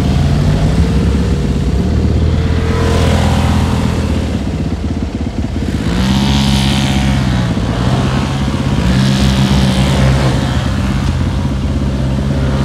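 Polaris RZR side-by-side engines revving hard in repeated rising and falling runs as the machines power-slide through loose sand.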